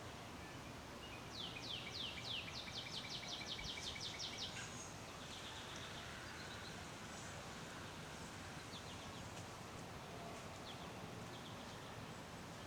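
A songbird singing one trill of quick downslurred notes that speeds up as it goes, lasting about three seconds, starting about a second and a half in, followed by a few faint chirps over steady outdoor background noise.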